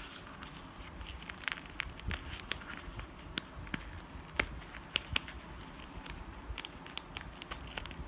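Hands handling small plastic parts and packaging: irregular light clicks, ticks and crinkles, several a second.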